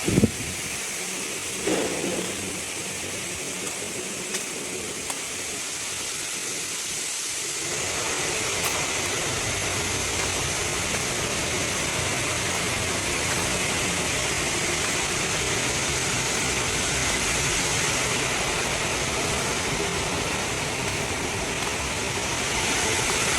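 Steady running noise of heavy quarry machinery with a constant hiss; a lower engine rumble comes in about eight seconds in and holds steady.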